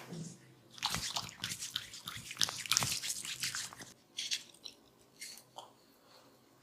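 A barber's hands massaging close to the microphone make a dense run of small crackles and crunches for about three seconds, then a few scattered clicks.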